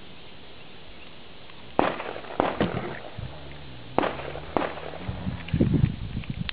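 Glock 42 .380 pistol firing a string of about six shots at an uneven pace, starting about two seconds in.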